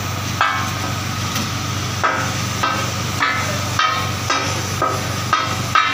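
Two metal spatulas striking a large flat tawa as they chop raw minced beef (katakat). There are about ten sharp, ringing clanks at an even pace of nearly two a second, over a steady low hum.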